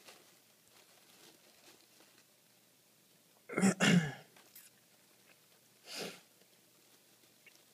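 A person sneezing once, loud and close, about three and a half seconds in, followed a couple of seconds later by a softer breathy sound.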